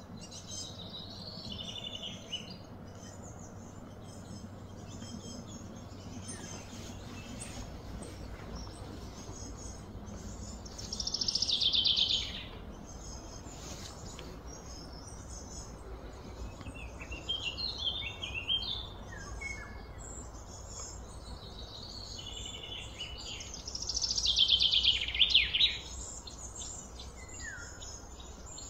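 Wild birds chirping and calling, with two louder rapid trills, about eleven seconds in and again near the end, over a faint steady low hum.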